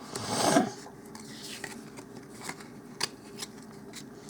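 Trading cards being handled, with a brief rustle and slide about half a second in as one card is moved off the stack, then faint scattered clicks and taps.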